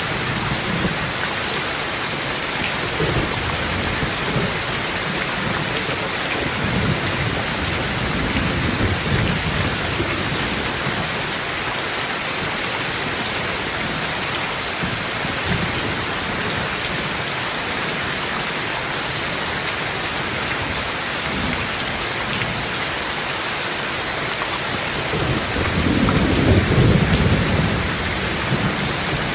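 Steady rain falling, with low thunder rumbling several times, loudest near the end.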